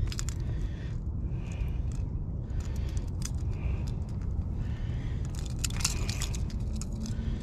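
Low steady rumble of surf and wind on the microphone, with scattered small metallic clicks and jingles. A quick cluster of clinks comes about six seconds in.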